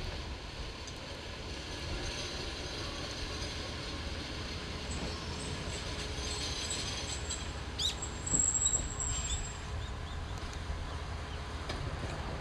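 Noto Railway NT100 diesel railcar moving slowly along a station platform, its engine rumbling low and steady, with a sharp click and then a brief high wheel squeal about eight seconds in.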